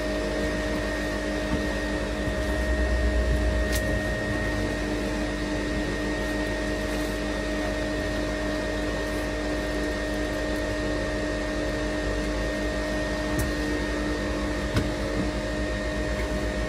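Parkside PTSG 140 C2 bench disc sander running with no load: a steady motor hum and whine. A brief low rumble comes in between about two and four seconds.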